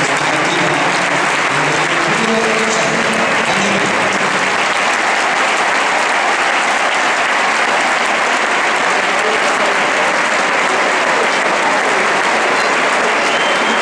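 Large stadium crowd applauding steadily, thousands of hands clapping with crowd voices mixed in.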